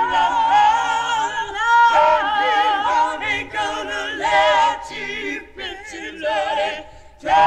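A cappella choir singing a freedom song, several voices in harmony on held, wavering notes.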